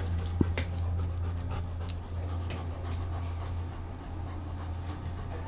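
Yellow Labrador panting right at a camera strapped to its body, over a steady low hum, with scattered small clicks.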